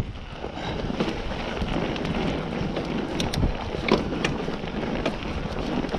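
Mountain bike rolling along a trail: a steady rush of tyre and trail noise with scattered clicks and rattles from the bike, and wind on the microphone.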